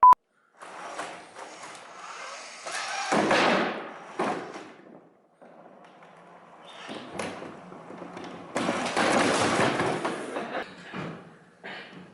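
Irregular mechanical clatter and thumps, in uneven bursts of a second or two with short pauses between, the loudest around three seconds in and again from about nine seconds, typical of a competition robot driving and working its mechanisms.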